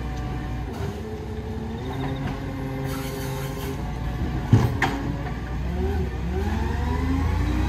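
Side-loader garbage truck's diesel engine running with a steady whine as the lifting arm works, two sharp clunks about four and a half seconds in as the bin is set back down, then a rising engine note as the truck pulls away.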